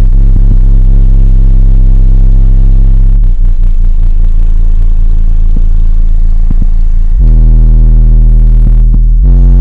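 Car subwoofers playing deep, sustained bass notes at very high volume, each held for a few seconds before stepping to another note, loud enough to overload the recording.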